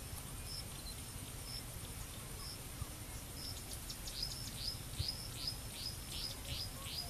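A bird calling, first with short high notes about once a second, then from about four seconds in with a quick series of downslurred whistles, about three a second. Under it lie a faint steady insect trill and a low rumble.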